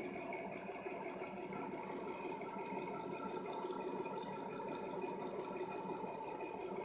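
Rockwell 70-400 drill press running, a steady motor hum with several even tones and no change in speed.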